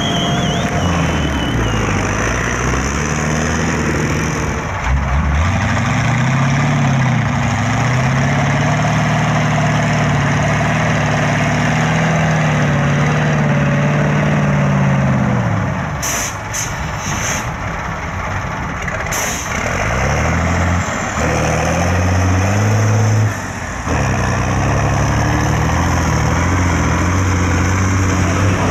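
Heavy off-road truck engines revving hard in mud, the pitch climbing and falling again and again as the drivers work the throttle. There are a few sharp cracks a little past the middle.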